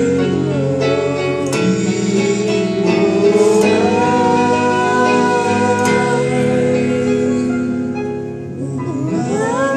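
A man singing a slow song with long held notes, accompanied by an electronic keyboard. Near the end the voice slides upward into a new phrase.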